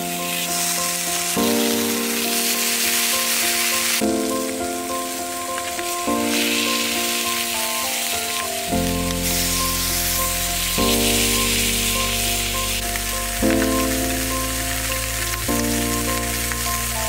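Thick slabs of pork belly sizzling in hot oil in a steel frying pan, a dense steady crackling hiss. Background music plays along, with a bass line coming in about halfway through.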